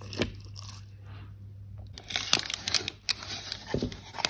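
A spoon stirs a wet oat-and-seed bread mixture quietly, with one click near the start. About halfway through, a run of sharp crackles begins: the baking paper lining the loaf tin crinkling as it is handled.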